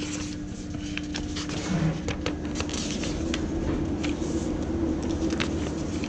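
Pages of a paper manual being turned and handled: a run of short papery rustles and flicks over a steady low machinery hum.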